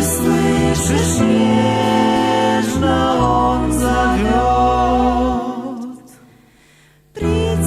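Sung Christian choral music with held voices and chords, fading out about five to six seconds in. After a short lull the music starts again abruptly near the end.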